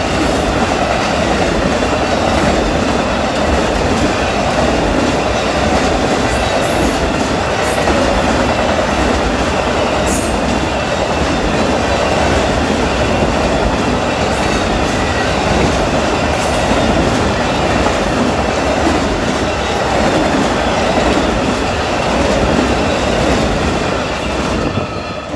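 Amtrak Auto Train's autorack cars passing close by at speed: a steady loud rumble of steel wheels rolling on the rails, which falls away near the end as the last car goes by.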